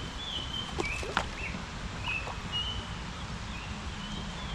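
A bird calling with short high whistles, repeated roughly every half second, over a steady low rumble. A couple of sharp clicks about a second in.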